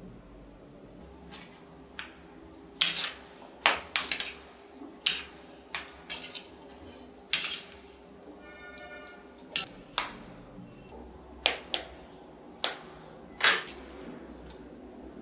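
Raw chicken strips being mixed with their marinade in a steel plate: a string of sharp clinks and knocks against the metal plate, about a dozen in all. Near the end comes a louder crack as an egg is broken.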